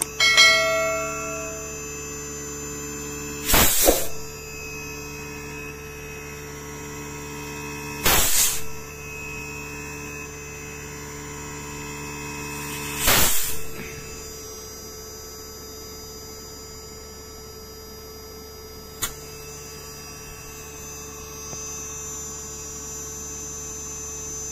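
Steady hum of an inverter air conditioner's compressor running on the bench, driven by the outdoor inverter board, holding several fixed tones. A ringing ding just after the start, three short loud rushing noises about every four to five seconds, and a single sharp click later on.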